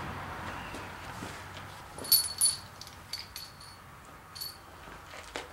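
Light metal-on-metal clinks of steel engine parts being handled during main bearing cap fitting: two ringing clinks about two seconds in, then a few fainter ones.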